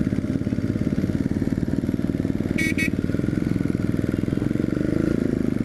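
Yamaha XT250's single-cylinder four-stroke engine running steadily under the rider as the motorcycle cruises along. Two short high beeps sound about two and a half seconds in.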